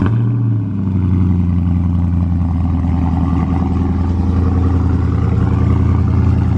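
A heavily modified car's engine just after start-up, briefly running at higher revs for about the first half-second, then settling to a steady, loud idle.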